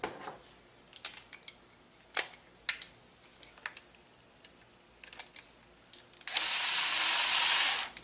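Light metal clicks as a socket is fitted onto the throttle cable bracket's bolts, then a small cordless power driver runs for about a second and a half near the end, tightening a bolt.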